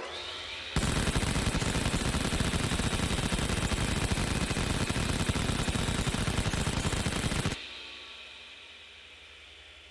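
Vulcan rotary cannon spinning up with a rising whine, then firing one continuous, very rapid burst for about seven seconds. The burst stops suddenly, leaving a fading tail with a slowly falling whine as the barrels wind down.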